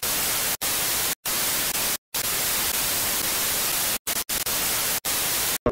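Analogue TV static hiss, steady and even, broken by short dropouts to silence at irregular moments.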